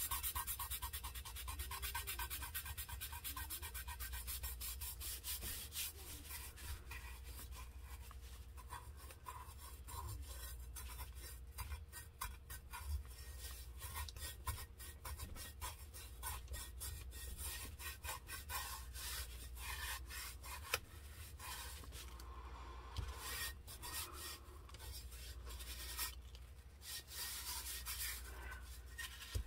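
Gloved fingertips rubbing glitter down onto a tumbler, pressed hard into the tacky coat: quick, evenly repeated rubbing strokes at first, turning more uneven after about six seconds.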